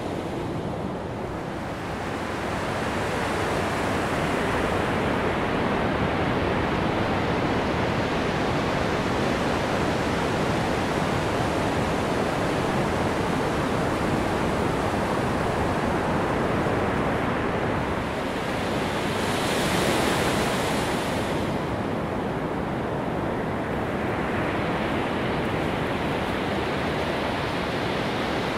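Ocean surf washing steadily onto a sand beach, with one louder wave surging about two-thirds of the way through.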